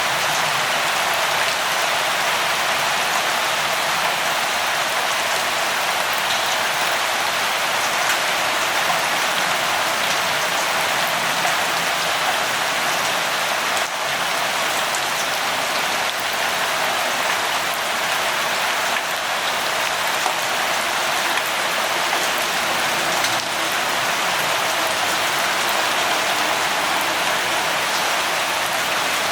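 Steady rain, with a dense patter of drops hitting a surface and no thunder.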